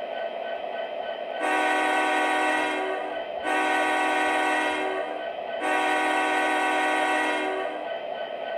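Sound system of an MTH O-gauge Union Pacific 4141 diesel locomotive model blowing its horn in three long blasts of about two seconds each, over a steady idling hum.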